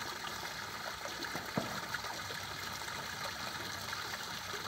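Steady trickle of running water at a garden fish pond, with one sharp knock about a second and a half in.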